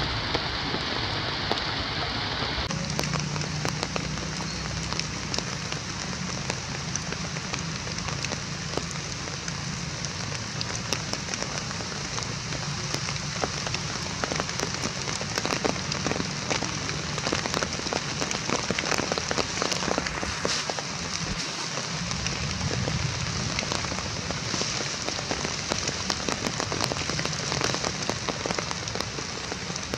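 Steady rain falling, a continuous hiss with a dense patter of individual drops; its tone shifts slightly about three seconds in.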